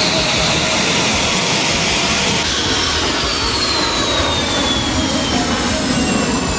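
Jet engine sound effect played by the one-button sound module built into a 1/48 F-CK-1 scale model: a steady roar with a high whine that starts falling in pitch a little over two seconds in, like the engine spooling down.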